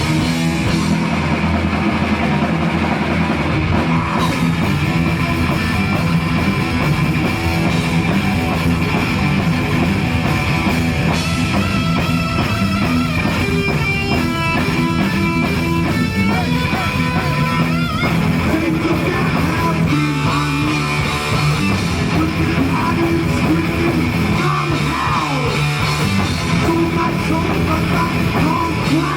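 Heavy metal band playing live, loud: distorted electric guitars over bass and a pounding drum kit, with a stretch of single-note lead guitar lines in the middle.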